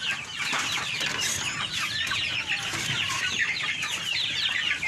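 A flock of chickens calling, with many short high chirps and clucks overlapping in a continuous chatter.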